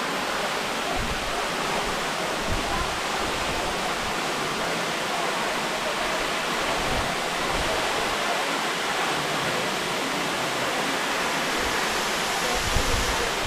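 Waterfall rushing: a steady, even roar of falling water, with a brief low thump near the end.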